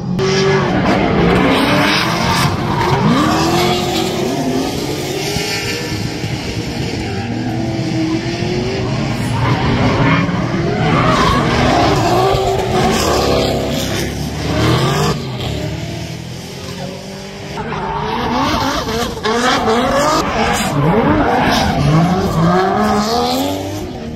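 Drift cars sliding through a corner: engines revving hard, the pitch climbing and falling again and again with the throttle, over tyres squealing and skidding. The sound eases a little about two thirds of the way in, then builds again as more cars come through.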